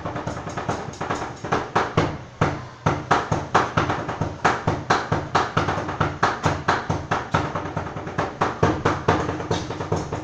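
Knives chopping sisig on a chopping board: a fast run of sharp strikes, several a second, beaten out in a drum-like rhythm.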